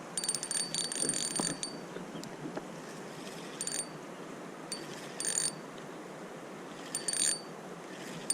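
Fishing reel ratcheting in short bursts of rapid clicks while a hooked fish fights on the line. The longest burst comes in the first second or so, followed by three brief ones.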